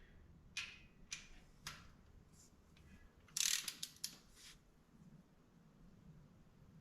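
Hand ratchet wrench clicking faintly in short strokes as intake manifold bolts are run down and snugged. There are a few single clicks, then a quicker run of clicks about three and a half seconds in.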